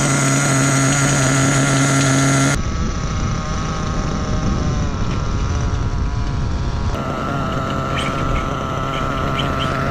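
Small glow-fuel engine of a Kyosho USA-1 Nitro RC monster truck idling at a steady, fairly high pitch. Near the start it breaks off for about four seconds of rushing noise, then returns unchanged.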